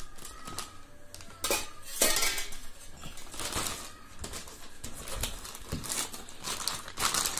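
Stainless-steel mixer-grinder jar clinking and knocking as it is handled and set down, with a couple of sharp knocks about one and a half and two seconds in. Plastic packaging then rustles inside the cardboard box.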